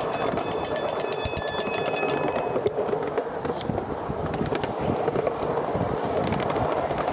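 Railroad crossing signal bell ringing rapidly and evenly, cutting off about two seconds in, over the steady rumble and clatter of a ride-on miniature train rolling along its track.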